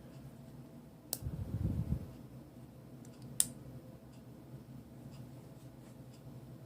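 Handling of a metal prop sonic screwdriver: a sharp click about a second in and another about three and a half seconds in, with a brief low rumble of handling between and faint small ticks afterwards.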